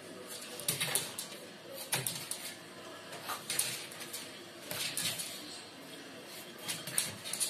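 Irregular short knocks and scrapes, roughly one a second, from a French bulldog's paws and claws on a wooden TV cabinet as it climbs up against it.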